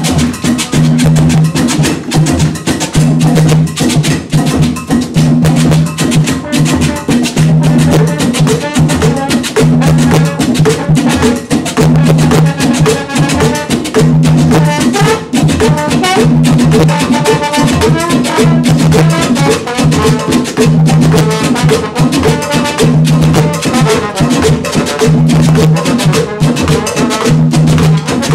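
Live Latin percussion band playing a steady groove: congas, timbales and hand drums, with a trombone line over a low riff that repeats about every second and a half.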